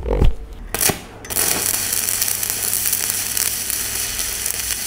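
Two short knocks in the first second, then a manual stick-welding arc on a thick-coated rutile (E6013) electrode, 3.25 mm at 100 A, catches and burns with a steady, dense crackle and sizzle as it runs a vertical-down fillet weld.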